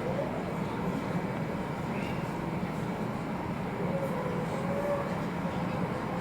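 Steady low rumble of jet airliner engines at low power, with a faint wavering tone above it.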